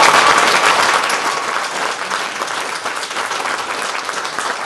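Audience applauding, loudest at the start and gradually dying away.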